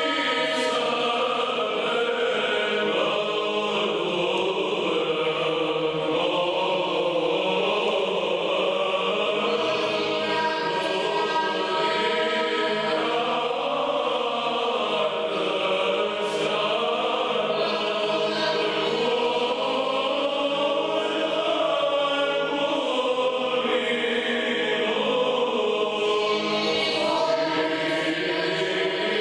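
A choir singing Orthodox church chant as background music, the voices held in long, slowly moving lines without a break.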